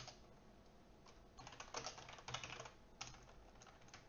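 Faint typing on a computer keyboard: a few short runs of keystrokes with pauses between them.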